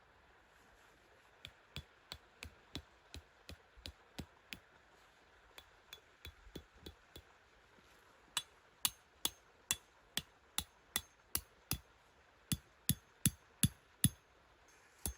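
Repeated hammer-like strikes, about three a second, in runs of four to nine with short pauses, each with a slight ringing edge; the strikes get louder about halfway through.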